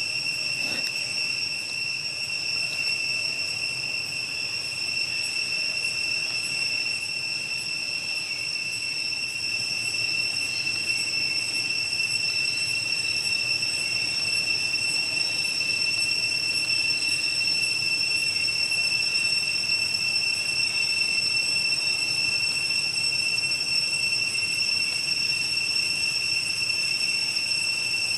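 Insects droning outdoors: one steady high-pitched whine that never changes pitch or level.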